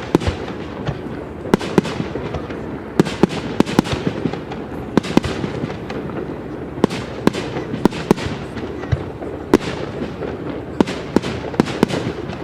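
Fireworks display: many sharp bangs of shells bursting at irregular intervals, sometimes several in quick succession, over steady background noise.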